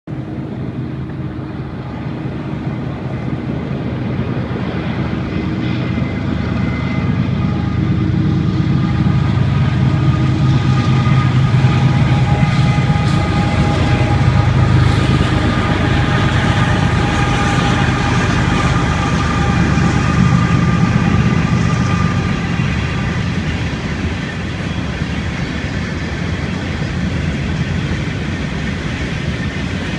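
Train passing: a steady rumble that swells over the first ten seconds or so and holds, with faint high steady tones above it.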